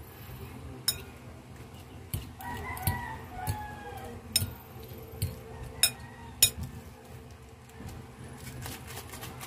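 A rooster crowing once, about two and a half seconds in, the call falling in pitch as it ends. Several sharp clicks and knocks sound through it, the loudest a little past six seconds in.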